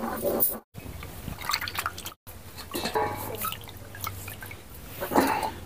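Water splashing and dripping in a steel plate as cut pieces of fish are washed and rubbed by hand.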